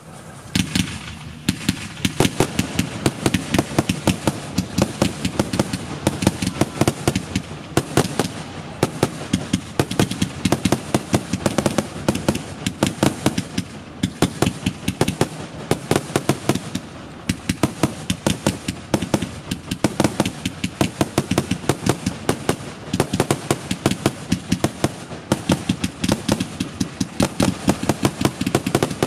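Consumer fireworks going off: a dense, continuous run of sharp bangs and cracks, several a second.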